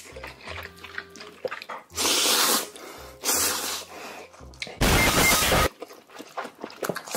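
Ramen noodles slurped loudly into the mouth in three long, wet pulls about a second apart, the last the loudest.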